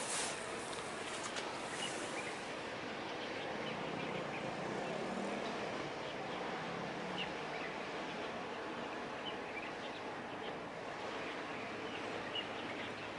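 Steady outdoor background noise with short bird chirps scattered through it; a faint low steady hum comes in about two-thirds of the way through.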